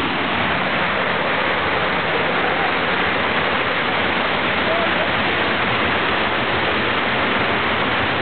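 Steady rushing of water, an even, unbroken noise.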